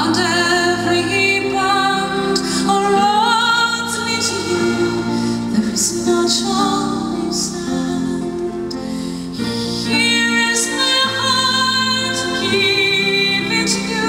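Live band music: a woman's voice singing long notes with vibrato over an ensemble of grand piano, upright bass, cello and drums, picked up by a camera microphone in the audience.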